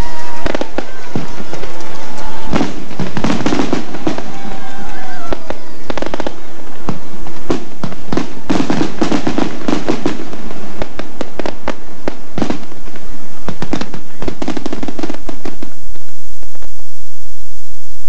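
Fireworks display recorded on cassette tape: many sharp bangs and crackles with a few whistling tones gliding in pitch early on, thinning out in the last couple of seconds.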